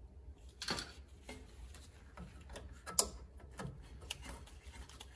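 Scattered light metallic clicks and taps of small parts being handled and fitted by hand at the front wheel knuckle, with one sharper click about three seconds in.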